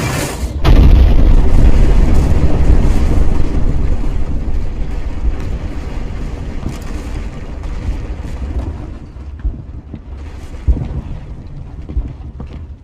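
Battle sound effect: a sudden large explosion about half a second in, its deep rumble slowly dying away over several seconds, then a few scattered distant thuds near the end.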